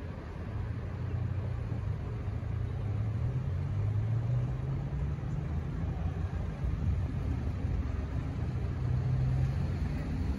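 Road traffic going by: a steady low rumble of car engines and tyres, swelling as vehicles pass.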